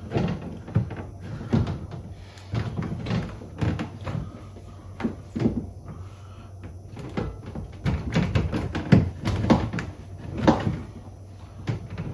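Irregular plastic knocks, clicks and creaks as a tool is jammed into the slot of a wedge-shaped barb clip in a BMW M2's plastic rear bumper and pushed down to release the diffuser's centre section. The sharpest knocks come in a cluster about two-thirds of the way through.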